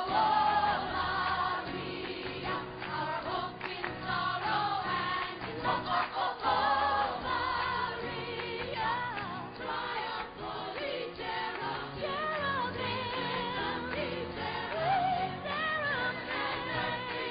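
Music: choir-style singing, several voices at once with wavering vibrato.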